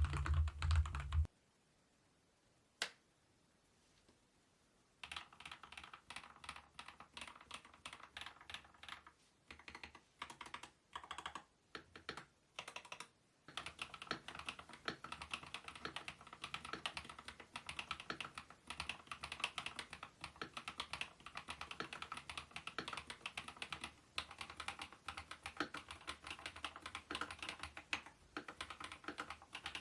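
Keys of a Kemove K87 1980 mechanical gaming keyboard being typed on. After a short louder sound cuts off at the start, there is a pause with a single click. Keystrokes begin about five seconds in, first in small runs and separate presses, then as fast, steady typing.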